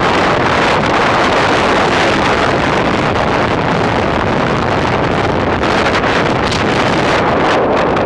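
Wind rushing over the microphone of a motorcycle riding along at speed: a loud, steady noise that covers everything else.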